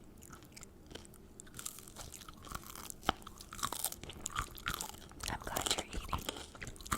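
Crunchy corn tortilla with a veggie filling being bitten and chewed: sparse crunches at first, growing denser and louder after about two seconds.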